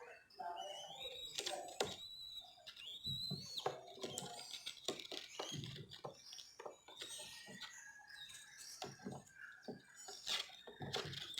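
Young dove chicks giving thin, high, wavering squeaks, mostly in the first few seconds, with many short clicks and taps throughout.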